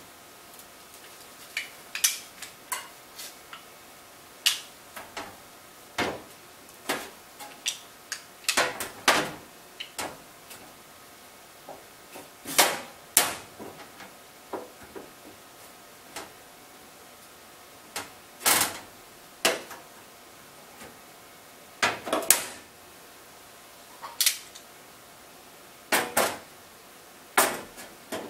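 Sheet-steel panel and magnetic holders clacking against a car's steel firewall as the panel is positioned: irregular sharp metallic clicks and knocks, some ringing briefly, about two dozen in all.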